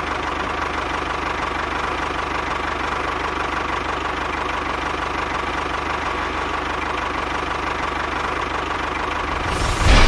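Tractor engine running steadily at a fast, even, knocking idle. It grows louder just before the end.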